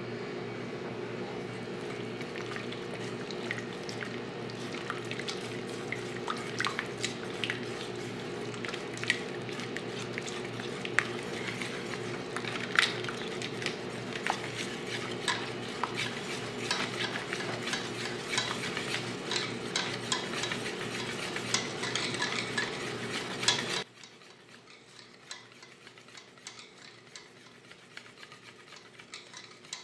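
Wire whisk stirring thick gram-flour batter in a stainless steel bowl, its wires clicking and scraping against the steel again and again, over a steady low hum. About 24 seconds in the sound drops abruptly and the whisking goes on more faintly.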